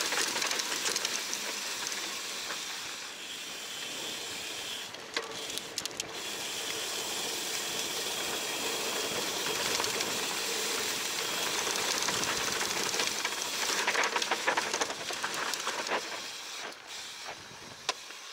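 Wind rushing over the mic of a handlebar-mounted camera on a mountain bike riding down a dirt singletrack, with tyre noise and short rattles from the bike over the rough trail. The noise falls away over the last couple of seconds.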